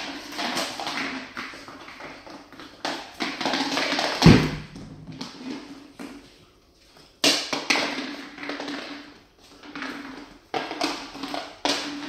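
A puppy playing with a plush toy on a tiled floor: irregular spells of scraping and scuffling as the toy is pushed and dragged across the tiles, with claws tapping on the tile and a single heavy thud about four seconds in.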